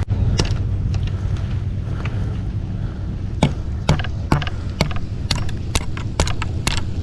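Raindrops tapping irregularly and sharply on a shelter overhead, over a steady low rumble.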